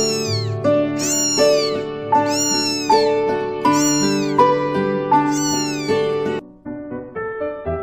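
A cat meowing about five times in a row, each meow a short high call that rises and falls in pitch, over background music.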